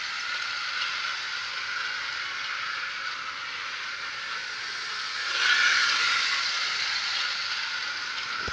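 Model train running on its track: a steady whirring hiss of the motor and wheels, swelling briefly about five seconds in.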